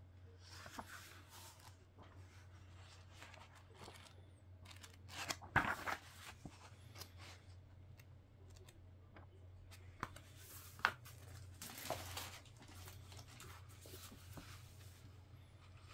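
Packaging being handled: faint rustling and crinkling with scattered clicks, and a few louder tearing or crunching handling noises about a third of the way in and twice around two-thirds through, over a steady low hum.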